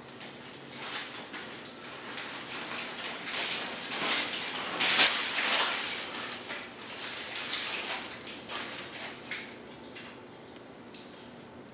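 Crinkling and rustling of a crumpled foil sheet wrapped around a person as he shifts and sits up, a dense crackle loudest about five seconds in that dies down near the end.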